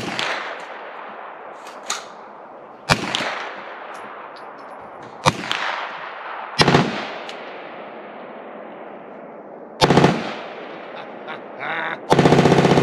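Kel-Tec 9mm carbine firing spaced single shots, about five of them, each a sharp crack with an echo tailing off, a few seconds apart. Near the end a rapid burst of gunfire begins.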